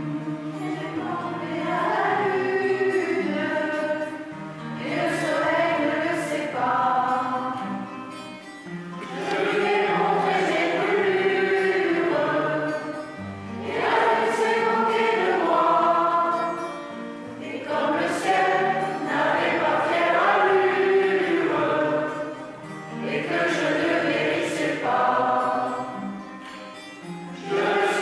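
A mixed choir of men's and women's voices singing together, in phrases of about four to five seconds with short breaks between them.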